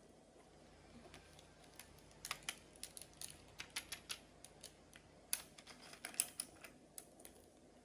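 Irregular light clicks and taps of small plastic toys being handled, a toy fishing rod and a plastic giraffe, with the sharpest clicks a little past five and six seconds.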